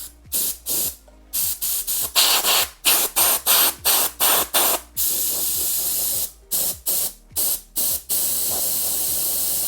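Tekiro air duster gun blowing compressed air at about 30 psi, triggered in quick short hissing blasts. It is held open twice for a longer steady blast, about halfway through and again near the end.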